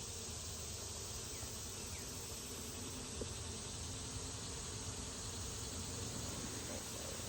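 Steady buzzing of honey bees around an opened hive.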